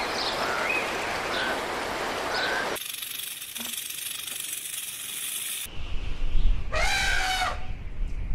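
Three animal clips in a row. First comes outdoor ambience with short bird chirps, then about three seconds of steady high hiss. Last comes a low rumble and a short elephant trumpet with several overtones, about seven seconds in.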